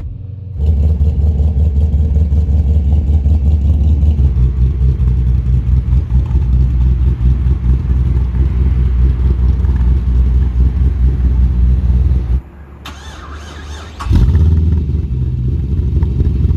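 Holden VX Commodore engine with a freshly fitted aftermarket Kelford camshaft and valve springs, running with a loud, low exhaust note. The sound drops away briefly about two-thirds of the way through, then comes back at full level.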